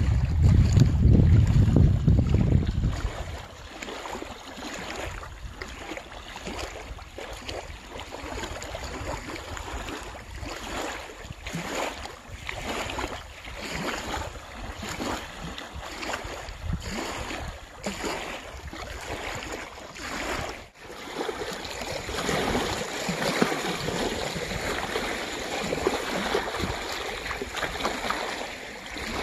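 Wind buffets the microphone for the first few seconds, then small waves lap and splash irregularly on a gravel shore with a steady wind.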